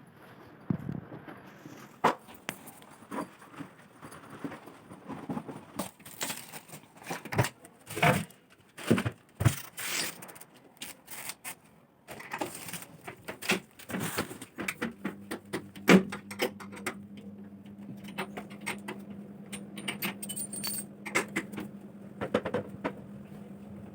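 A string of irregular clicks, knocks and light rattles from objects being handled, with short rustling bursts in between. From a little past the middle a steady low hum runs underneath.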